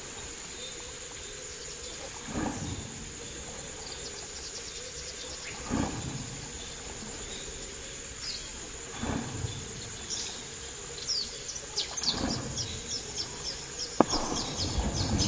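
Insects and birds at dusk, with a steady high insect drone and chirps that grow busier near the end. Over it, a fishing lure splashes on the water surface five times, about every three seconds, with a sharp click near the end.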